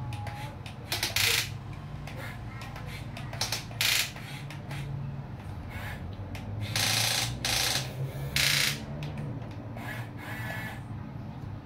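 Huina 1550 remote-control excavator working in sand: its geared electric motors whir in short bursts, about half a second each, as the boom, arm and bucket move, over a steady low hum, with the bucket scraping through the sand.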